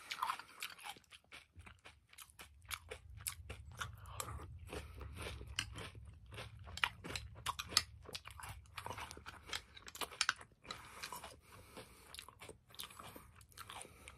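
Close-up chewing of frosted corn flakes cereal in milk: a dense run of short, crisp crunches, several a second, as the flakes break between the teeth.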